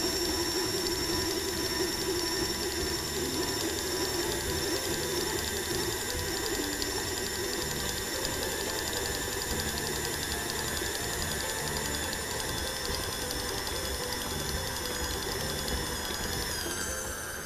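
KitchenAid stand mixer running steadily, its motor whining as it kneads pastry dough; the whine drops in pitch near the end.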